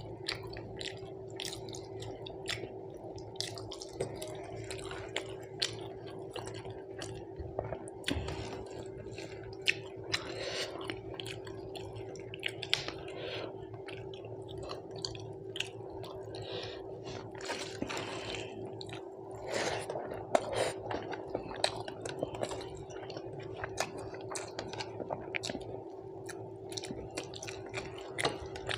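Close-up eating: wet chewing and lip smacks from a meal of rice with dal and fish curry, with many small sticky clicks, over a steady hum.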